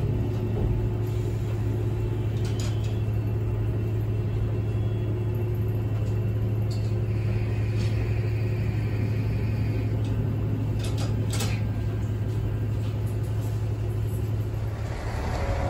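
Diesel engine of a JR Central KiHa 11-300 railcar idling steadily with the train standing at the platform, heard as a low, even hum inside the cab, with a few faint ticks.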